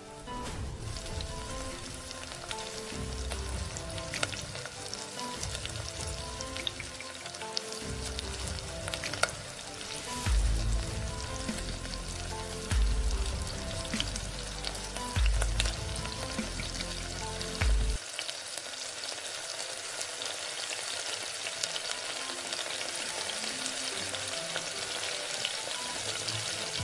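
Onion paste and ginger-garlic paste sizzling and crackling as they fry in hot oil in a pan, stirred and scraped with a wooden spatula.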